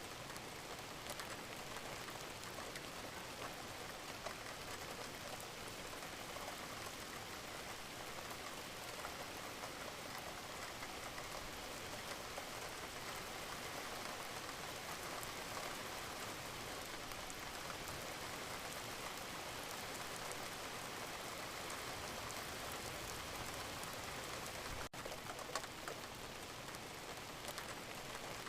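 Steady rain falling, an even hiss of dense fine drops pattering on a surface, with a momentary dropout near the end.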